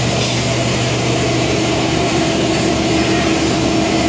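Steady industrial machine drone with a constant hum, and the crackle of a stick-welding (shielded metal arc) electrode burning against the steel.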